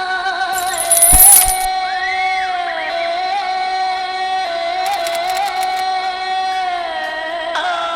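Intro of a hip-hop track: a sustained, slowly shifting chord, with a loud jingling, coin-like burst about a second in and a quick run of sharp ticks around five seconds in.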